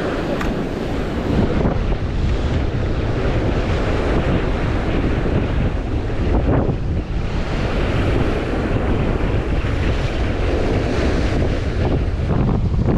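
Strong wind buffeting the microphone with a heavy low rumble, over the wash of sea surf against the shore rocks.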